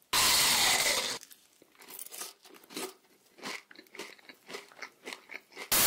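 Close-up crunching and chewing of crunchy fried food. A loud rush of noise fills about the first second, then short crunches and smacks come at irregular intervals.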